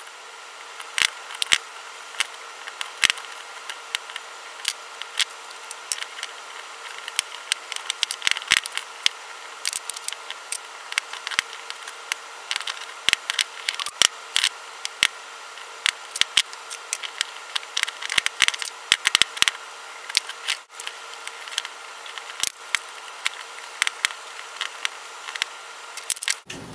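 Small metal hand tools and a machined aluminium adapter clicking and clinking as they are handled on a workbench: irregular sharp clicks, some in quick clusters, over a faint steady hum.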